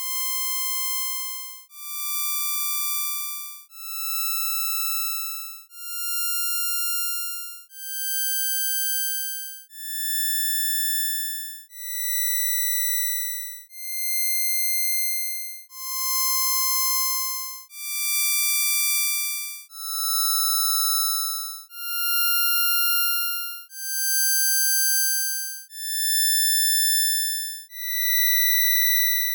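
Synthesized Csound impulse-train tones (buzz opcode), first through an IIR high-pass filter and, from about 16 s in, through a comb filter. Each buzzy electronic tone lasts about two seconds and fades in and out. The tones step up a scale, and the rising run starts over when the comb-filter section begins.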